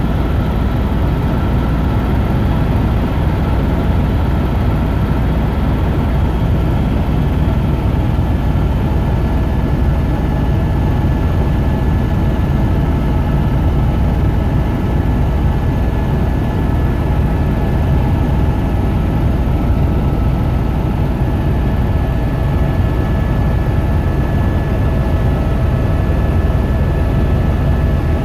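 Helicopter in flight, heard from inside the cabin: a steady rotor and engine drone with faint, steady high whines above it.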